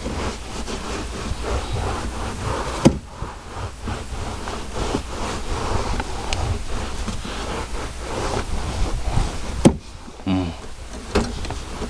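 Towel being rubbed and scrubbed against truck floor carpet: a run of scratchy, rustling strokes, with two sharp knocks, about three seconds in and near the end.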